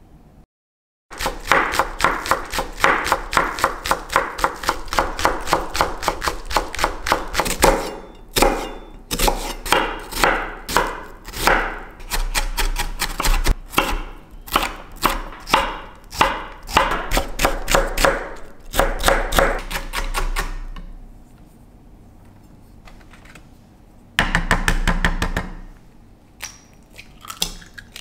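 Chef's knife chopping vegetables finely on a bamboo cutting board, in quick, even strokes several a second. It pauses briefly about 8 seconds in, stops about 20 seconds in, and comes back for a short fast burst a few seconds later.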